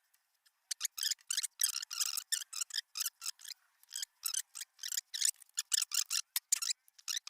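Small carburetor parts being handled and set out for reassembly: an irregular run of light, sharp clicks and scrapes, about three or four a second.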